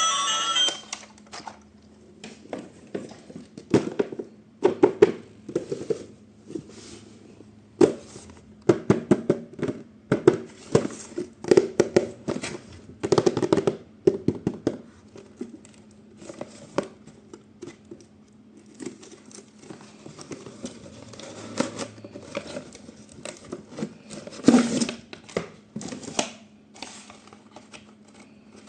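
Toy packaging being handled and opened: cardboard and plastic crinkling, tearing and clicking in irregular clusters, with a louder knock about three-quarters of the way through.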